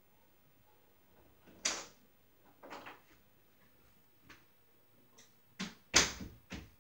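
A handful of scattered knocks and thumps from someone moving about a small room and handling things, the loudest about two seconds in and about six seconds in.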